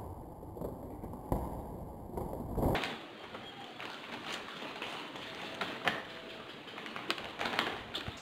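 Snack eating close to the microphone: scattered sharp crinkles and crunches from a plastic chip bag being handled and chips being chewed. A low rumble under the first few seconds stops abruptly about three seconds in.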